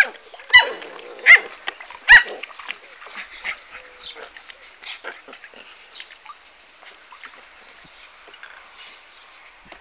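American Staffordshire Terrier puppies, 40 days old, yipping: four sharp, high yips in the first two seconds or so, then softer scattered yips and small noises.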